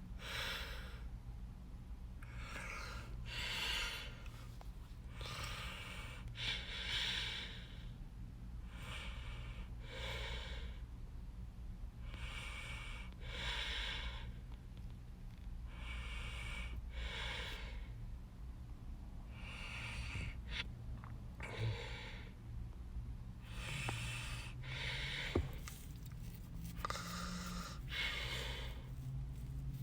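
A person breathing audibly close to the microphone, a breath every two seconds or so, over a steady low hum. A sharp click comes near the end.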